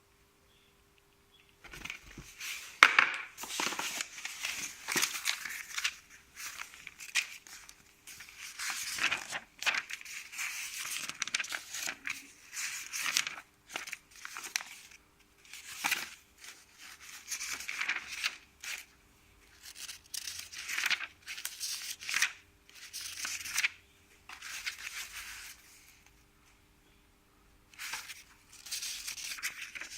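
Packaging being unpacked by hand: irregular bursts of rustling, crinkling and tearing, starting about two seconds in, with a short pause near the end.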